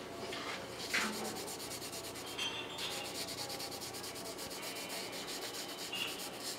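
Cloth rag rubbing Danish oil into the wooden body of a hand router plane. It starts with some handling and a light knock about a second in, then quick, evenly repeated back-and-forth wiping strokes from about three seconds in.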